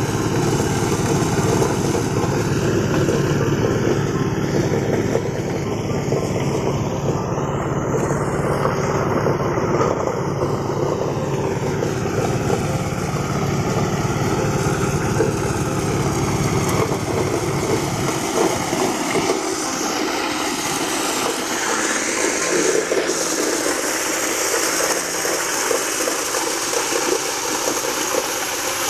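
Engine-driven corn milling machine running steadily, a continuous engine drone with mechanical noise as sacks of corn are fed in. The low engine drone weakens about two-thirds of the way through, leaving the higher machine noise.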